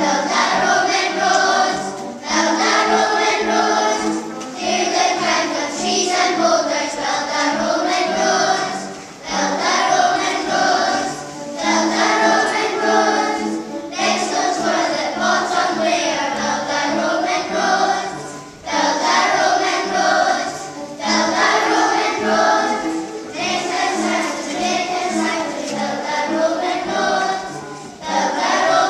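A group of young children singing a song together as a choir, in phrases of a few seconds with short pauses between them, over instrumental accompaniment.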